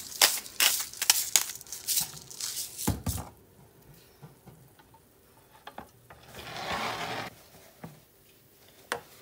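Quick crunching clicks, about three a second, from handling at a kitchen cutting board, ending in a heavier thump about three seconds in; later a short hiss around seven seconds and a single click near the end.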